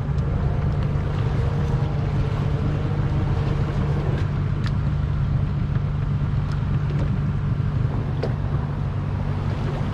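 A boat's inboard engine idling steadily with a constant low hum, and a few faint ticks over it.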